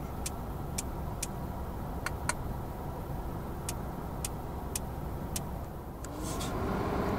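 Cabin noise of an Audi A3 Sedan with the 1.4 TFSI four-cylinder turbo petrol engine on the move: a steady low rumble of engine and road. Sharp clicks come at uneven intervals, often about half a second apart. Near the end the engine note grows louder.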